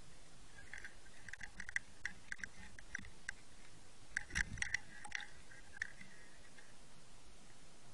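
Underwater clicks and short crackles from an underwater camera at a baited hook, busiest between about one and five seconds in, with a dull thump about four and a half seconds in as a fish comes to the bait.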